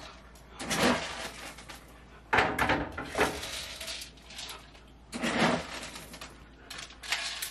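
Several short bursts of rattling and clatter from dry dog food being dished out into bowls.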